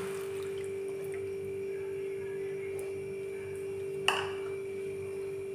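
A steady hum on one mid-range pitch, with a single sharp click about four seconds in.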